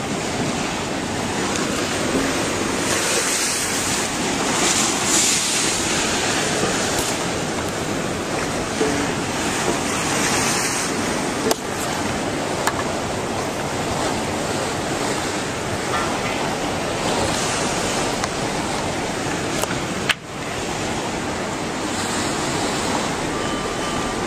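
Steady, loud rushing of water, with a sharp click about halfway through and another later on.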